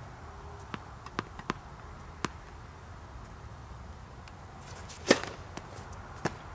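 Tennis serve on a hard court: a few sharp ball bounces, then a brief swish of the racket and a loud crack of the strings striking the ball about five seconds in, followed by a couple of fainter knocks.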